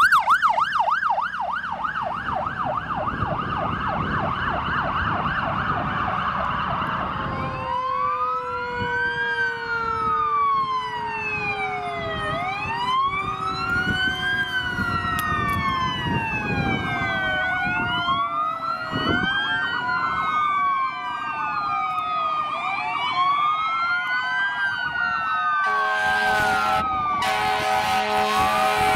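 A police SUV's siren on a fast yelp, dropping in pitch as it drives past. Then several fire truck sirens wail slowly up and down, overlapping, over diesel engine rumble, and near the end horns sound in short repeated blasts.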